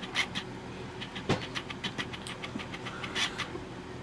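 Wet green slime squelching and clicking in quick little pops as hands squeeze it and pull it up out of a pan, with a louder slap about a second in.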